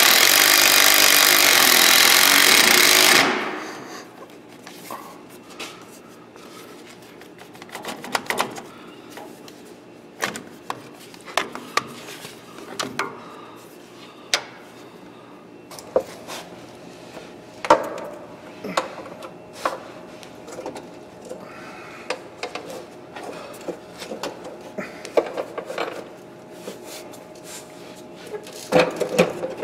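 Cordless impact driver running for about three seconds at the start, then scattered clicks, knocks and rattles of metal parts and heavy battery cables being handled.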